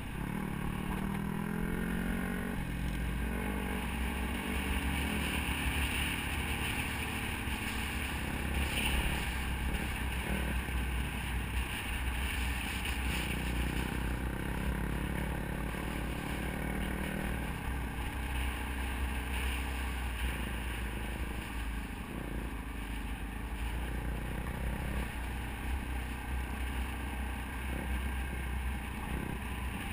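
Dirt bike engine running under way, its pitch rising and falling with the throttle a couple of times, with a steady low wind rumble on the helmet-mounted microphone.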